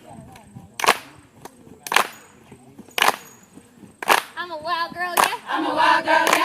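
A group clapping hands together in a steady beat, about one sharp clap a second. About four seconds in, a group of voices starts singing over the claps.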